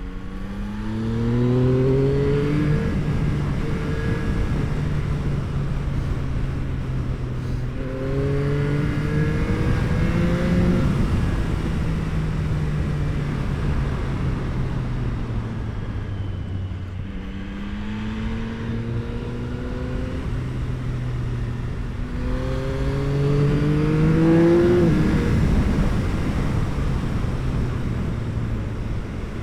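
Yamaha R9's 890 cc inline-three engine through an Akrapovič exhaust, ridden hard: the revs climb four times, with steadier running between.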